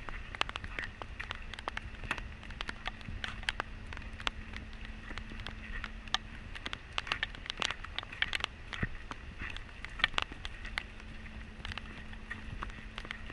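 Rain falling on a boat's deck and fittings, heard as many sharp, irregular drop clicks over a low steady hiss. A faint steady low hum runs underneath, stops about six and a half seconds in, and comes back near eleven seconds.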